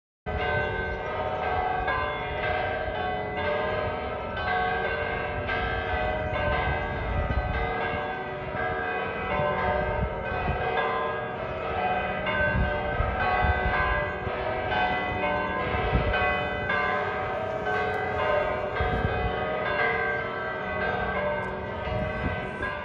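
Church bells ringing a continuous peal: many bells of different pitches struck one after another in quick succession. The peal starts suddenly.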